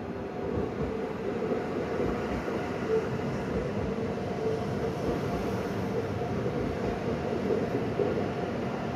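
Regional electric multiple unit passing on the station tracks: a steady rolling of wheels on rails with a faint electric hum, building a little in the first second.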